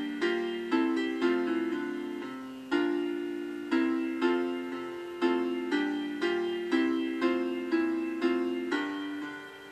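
Piano playing a slow hymn tune in struck chords, each chord dying away before the next, with a short pause between phrases about a third of the way in.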